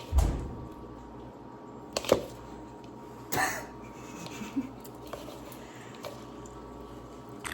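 Faint handling noises in a quiet kitchen: a soft low thud at the start, a couple of sharp clicks about two seconds in, and a short hiss about halfway through.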